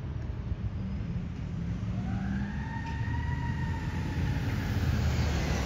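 Fire ladder truck's siren wailing in the distance, one slow rise and fall starting about two seconds in, over a steady low engine and traffic rumble that grows louder near the end.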